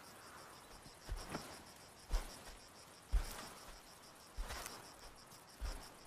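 Insects chirring steadily in a high, evenly pulsing buzz, with a few soft, dull thumps scattered through it.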